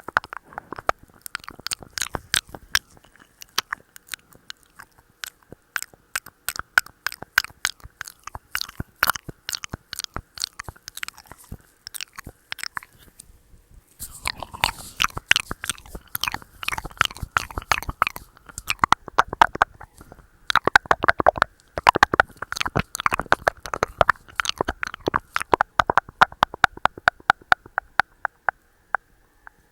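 ASMR mouth sounds: rapid wet clicks and smacks of the lips and tongue close to the microphone. There is a short pause about halfway through, after which the clicking comes denser.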